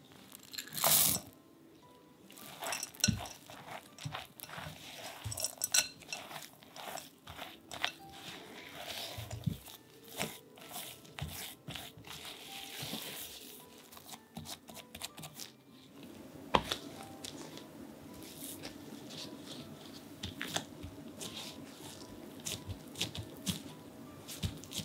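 A spatula scraping and pressing stiff chocolate chip cookie dough against a glass bowl: irregular scrapes, soft crackles and clicks, the loudest about a second in. Later, a gloved hand presses the gathered dough on a silicone mat.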